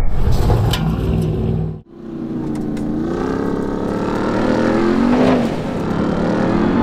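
2021 Ram 1500 TRX's supercharged 6.2-litre V8 revving hard as the tyres spin in loose dirt. About two seconds in the sound cuts off suddenly, and the engine then comes back with a clear note that climbs in pitch, peaks near the end and dips.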